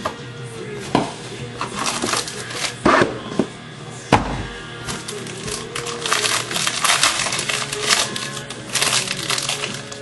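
Plastic packaging of a trading-card box crinkling and crackling in irregular bursts, denser in the second half, over quiet background music.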